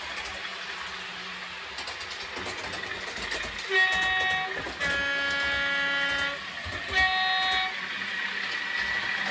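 Sound-fitted model train's two-tone horn sounding three notes, high, then a longer low, then high, starting about four seconds in, over the steady hum of the train running.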